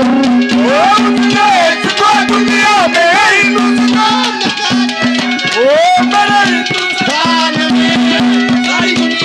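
Live Haryanvi ragni folk music: a voice sings a melody that slides and wavers, over a steady held drone note and hand-drum beats.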